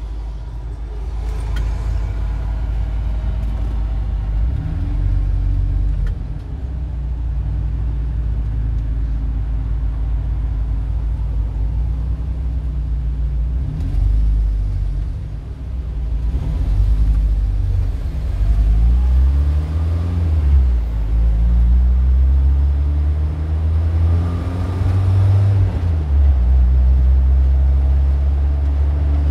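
Car engine running with a deep, steady rumble, its pitch rising and falling for a few seconds in the middle as if revving.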